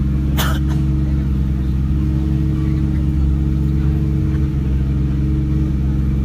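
Off-road pickup truck's engine running at a steady speed, with a brief clatter about half a second in.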